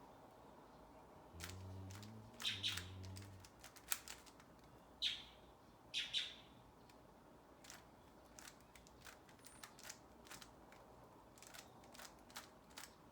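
Rubik's cube layers being turned by hand: a run of quick plastic clicks and clacks. A few short, higher chirp-like squeaks stand out in the first half, and a low hum sounds twice near the start.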